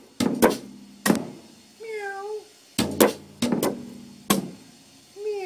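A cat meows once about two seconds in, a short call that rises and falls in pitch, and starts another right at the end. Around the calls come several sharp knocks, some with a brief low ring.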